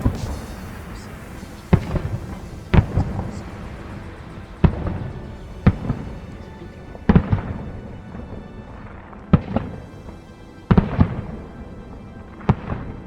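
Aerial firework shells bursting in a display: about nine loud booms at irregular gaps of one to two seconds, each followed by a ringing tail and some crackling.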